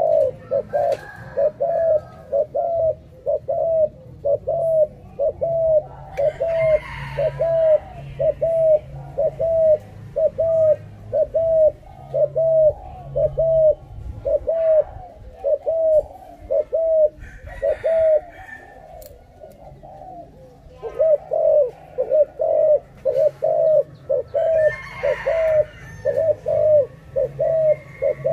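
Spotted dove cooing: one short, hollow note repeated about twice a second in a long, even series, with a brief pause about two-thirds of the way through.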